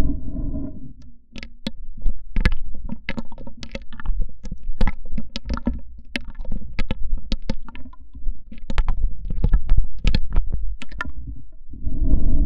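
Plastic washing machine hose being handled and tapped, giving a quick, irregular run of sharp clicks and taps over a low rumble.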